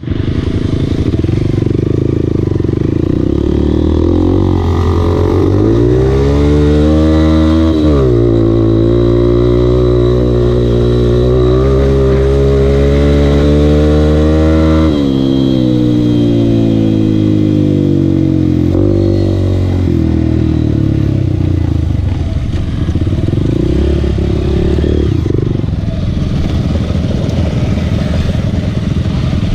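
Dirt bike engine heard close up from on board while riding: it climbs in pitch, drops sharply about eight seconds in as through a gear change, then holds a steady speed. About halfway through the throttle comes off and it runs lower and less even as the bike slows among the other riders' motorcycles.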